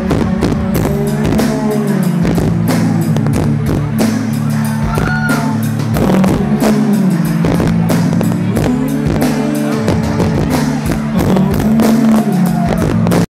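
Indie rock band playing live: electric guitar, held low keyboard or bass notes, regular drum hits and a sung vocal line, heard from the audience. The sound cuts off suddenly at the end.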